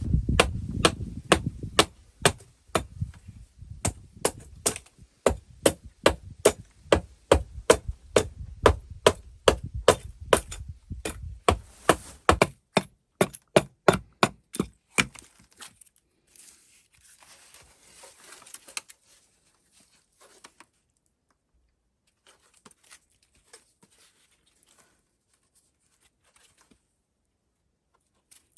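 A hand tool striking wood in quick repeated blows, about two to three a second, for some fifteen seconds, then a few scattered faint knocks.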